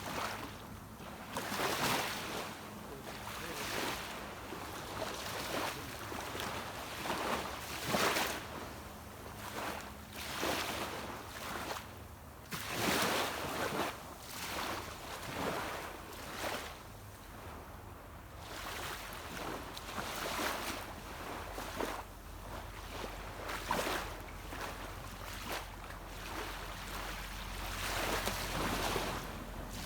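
Small sea waves washing onto a beach, one surge of rushing water after another every second or two. A low steady hum comes in during the second half.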